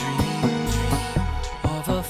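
Background music: held notes over a regular beat.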